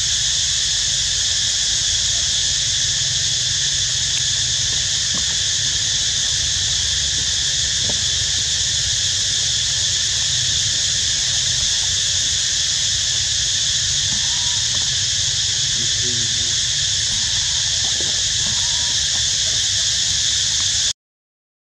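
A loud, steady chorus of insects in several high-pitched unbroken bands over a low rumble, cutting off suddenly near the end.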